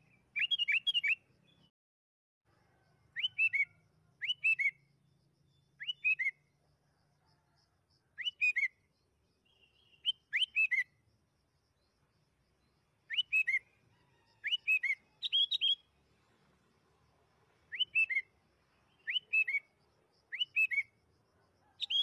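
Sooty-headed bulbul singing: short, bright whistled phrases of three or four quick notes, repeated every one to two seconds.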